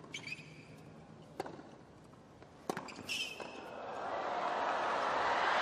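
Tennis rally on a hard court: three racket-on-ball strikes about a second and a half apart, with sharp shoe squeaks after the first and last. From about two-thirds of the way in, crowd noise swells steadily and becomes the loudest sound.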